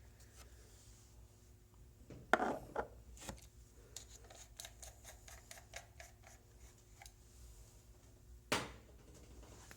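Aspire Atlantis tank's airflow ring being turned, its small spring-loaded detent pin giving a run of light, evenly spaced clicks, a sign the repaired base turns freely again. A louder handling knock comes about two seconds in and another near the end.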